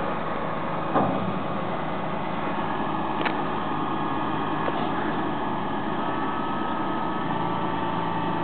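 Fendt 936 tractor's diesel engine running steadily, powering the hydraulic push-off wall of an Annaburger SchubMax trailer as it unloads maize silage out of the open rear. A single knock about a second in and a sharp click about three seconds in.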